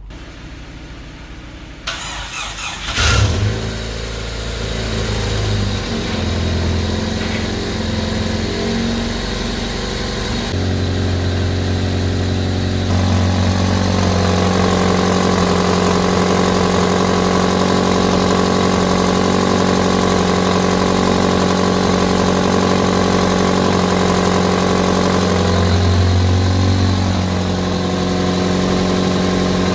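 Shop vacuum switched on and running steadily, its pitch and level shifting a few times as the nozzle is worked into the spark plug hole of a removed cylinder head to suck out debris.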